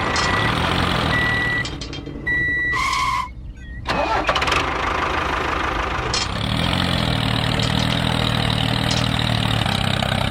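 Small engine running, with three short high beeps in the first few seconds and a two-tone beep near three seconds. It drops out briefly just after that, then runs on steadily and a little stronger from about six seconds.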